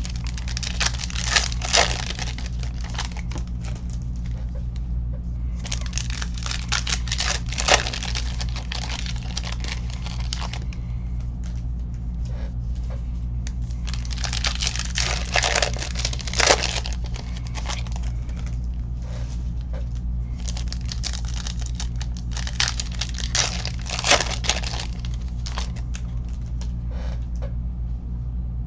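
Trading card packs and their wrappers being torn open and crinkled by hand, in several bouts a few seconds long, over a steady low hum.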